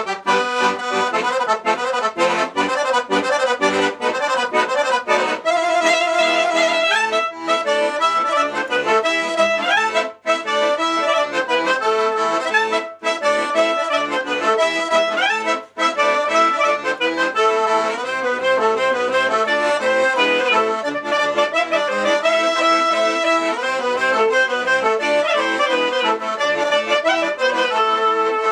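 Klezmer dance tune played live on a piano accordion, chords pumped in a steady rhythm, with a clarinet coming in partway through to carry the melody.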